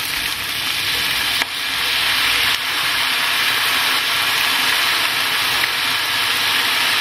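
Vegetables and tofu sizzling in a hot frying pan: a steady frying hiss that gets a little louder about a second and a half in.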